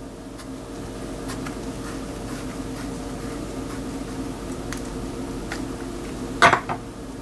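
Chef's knife cutting around the pit of a peeled peach on a wooden cutting board: faint scattered ticks and taps, with one louder knock about six and a half seconds in, over a steady hum.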